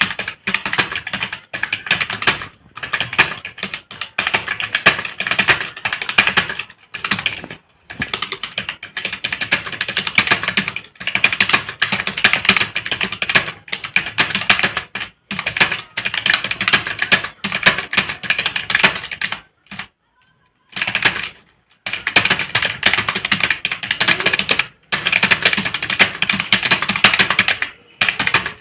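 Fast typing on a computer keyboard during a timed typing test, at about 63 words a minute: a dense, steady stream of key clicks broken by brief pauses, the longest about two-thirds of the way through.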